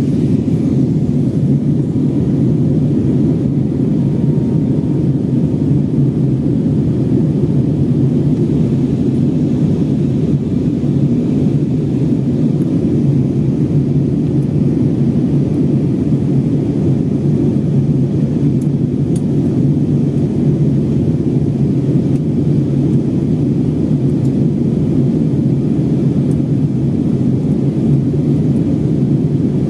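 Steady low rumble of an airliner's jet engines and rushing air, heard inside the passenger cabin.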